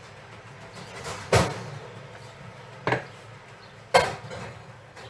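Oven shelf being moved and a cupcake tray put into the oven: three sharp clanks, the first about a second and a half in and the last near the end.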